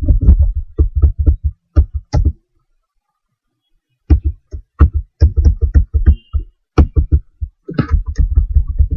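Typing on a computer keyboard: rapid keystrokes in two bursts, the second after a pause of about a second and a half.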